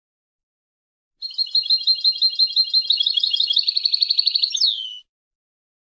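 European goldfinch singing one phrase of about four seconds, starting about a second in: quick repeated high notes that speed up into a fast trill and end on a single falling note.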